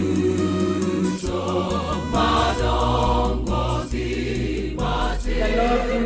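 Choir singing a gospel song with instrumental backing and a steady beat.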